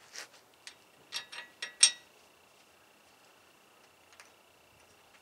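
Metal clicks and clinks as a new wheel stud is fitted into a wheel hub flange: about six sharp clicks in the first two seconds, the loudest near two seconds in, then one faint click near the end.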